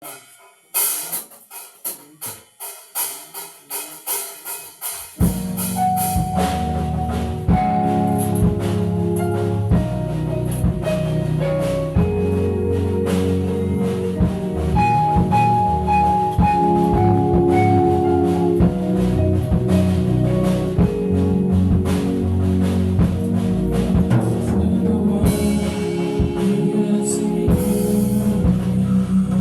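Music. It opens with about five seconds of quick, ringing percussive strikes, each dying away, then a full arrangement enters with drums, a bass line and held melody notes.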